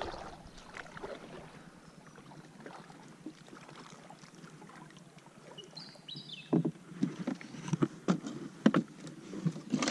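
Knocks and bumps on a kayak's hull over light water sounds, irregular and more frequent through the second half.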